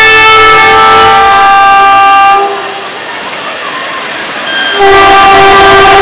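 Horn of an approaching Indian Railways WAP-4 electric locomotive, several notes sounding together in two long blasts: the first stops about two and a half seconds in, and the second starts about two seconds later.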